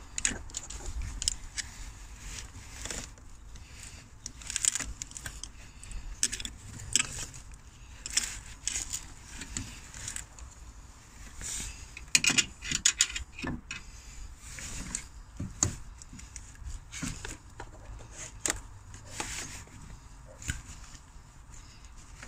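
Irregular clicks, taps and rubbing as hands work rubber heater hoses and plastic fittings onto a heater control valve in an engine bay, with a quick flurry of clicks about twelve seconds in.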